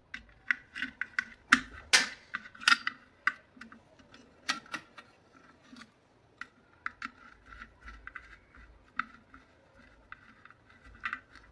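Small screwdriver tightening a screw into an electric iron's metal soleplate assembly: a run of irregular sharp clicks and ticks of metal on metal, the loudest about two seconds in.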